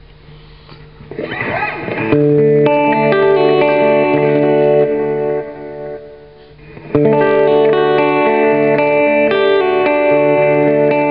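Electric guitar played through a homemade tap-tempo delay pedal, the Siren II, its notes followed by trailing echoes. The playing builds up over the first two seconds, dies down about five seconds in, and comes back loud about seven seconds in.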